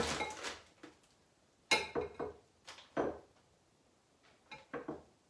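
Dishes and bowls knocking and clattering as they are moved about on a kitchen counter: a handful of separate clatters with quiet gaps between them.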